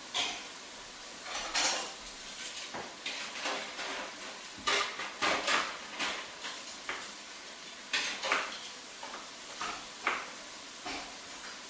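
A utensil clinking, knocking and scraping against a dish in irregular clatters, over a steady faint hiss.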